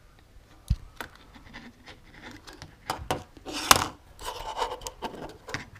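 Handling noises as a small camera is taken out and moved about on a desk: rustling, scrapes and small clicks. There is a dull knock about a second in, and the loudest scrape comes a little past halfway.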